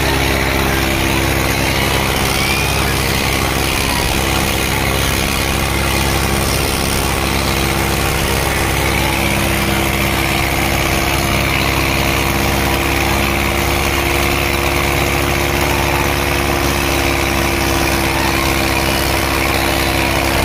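Diesel tractor engine running steadily at constant high revs under full load, straining in a tug-of-war pull hard enough to lift the tractor's front wheels off the ground.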